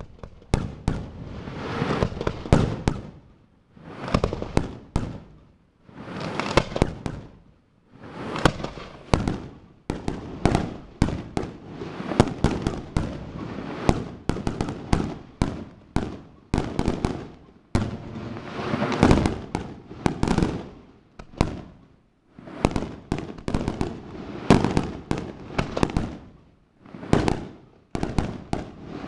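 Aerial fireworks shells bursting in rapid volleys of sharp bangs, with brief lulls every few seconds.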